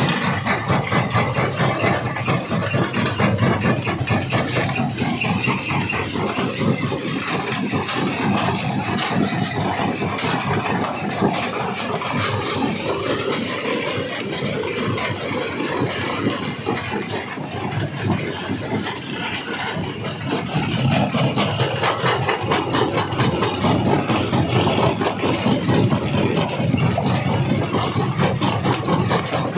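Stone crusher running at a quarry: a steady heavy machine drone under a dense clatter of rock being crushed, growing louder about twenty seconds in.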